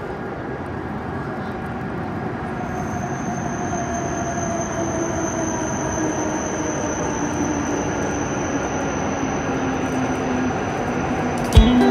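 E7/W7 series Shinkansen train pulling into the station and slowing, its rumble growing louder, with a slowly falling whine as it brakes and a steady high whine above it. Guitar music starts near the end.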